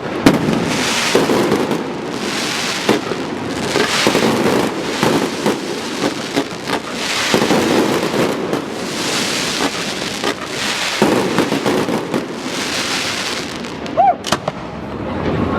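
Fireworks display: shells bursting one after another with a dense crackle that swells and fades every second or two, and sharp bangs just after the start and about fourteen seconds in.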